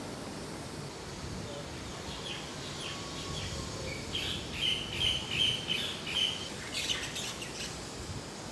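A bird chirping: a quick run of short, high repeated notes starting about two seconds in, loudest in the middle, with a few sharper notes near the end, over a steady background hiss.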